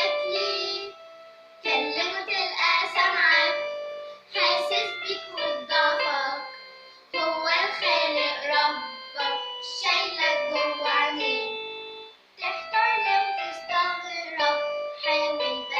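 A young girl singing an Arabic song in phrases with short pauses, over a keyboard playing held notes.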